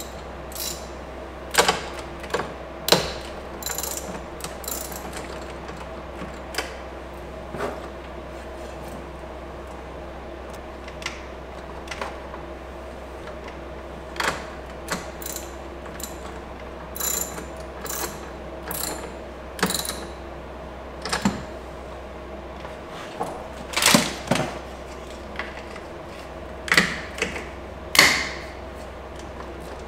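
Scattered, irregular clicks and small metallic rattles of hand work at a car's 12-volt battery as a power lead's connector is fastened to the positive terminal, over a steady low hum. The loudest clicks come about three-quarters of the way through and near the end.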